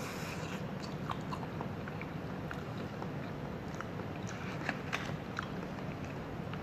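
A person chewing and biting food close to the microphone, with short, sharp mouth clicks that come more often in the second half, over a steady low background hum.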